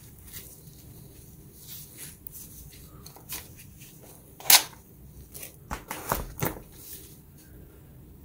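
Handling of a cordless impact wrench and its plastic 20V battery pack: gloved hands rustling, then a sharp click about halfway through and a few quick knocks as the battery is unlatched and slid off the tool.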